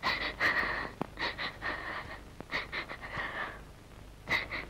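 A woman sobbing in a series of short, breathy bursts.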